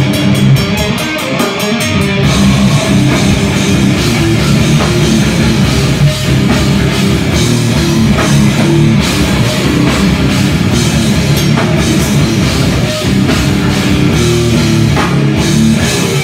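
Hardcore band playing live: distorted electric guitar, bass and drum kit with vocals over them, a fast run of cymbal hits in the first couple of seconds. The song stops abruptly at the very end.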